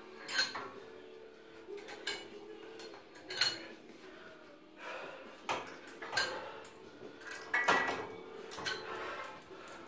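Inspire cable machine clinking and clanking as it is worked through repetitions of cable Y raises: seven or so sharp metallic knocks at irregular intervals of about a second, from the weight stack and cable hardware.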